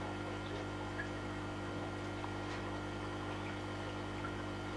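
Steady low hum with a faint wash of water from a large home aquarium's running pump and filter.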